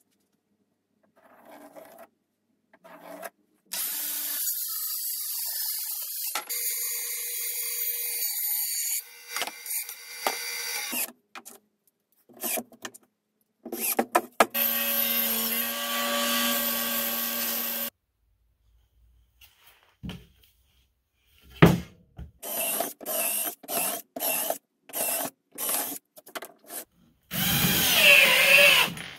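Cordless drill/driver driving screws into stacked particle board. There are a few longer runs of the motor, then near the end a quick string of short bursts and a final louder run as a screw is driven home.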